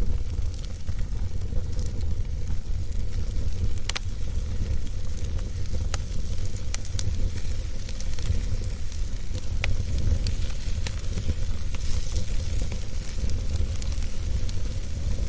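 Fire burning in a fire pit: a steady hiss with frequent small crackles and a few sharper pops, over a steady low rumble.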